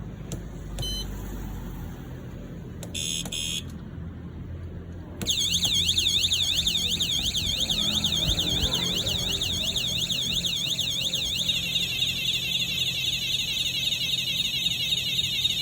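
A motorcycle anti-theft alarm: a short electronic chirp about three seconds in, then from about five seconds in a loud siren sweeping rapidly up and down in pitch. Past the middle it switches to a faster warbling tone pattern.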